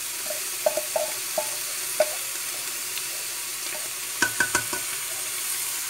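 Meat and bacon sizzling in an aluminium pressure-cooker pot as seasonings are scraped in from a frying pan with a wooden spoon. Scattered knocks come from the spoon and pan against the pot, with a quick run of ringing clinks about four seconds in.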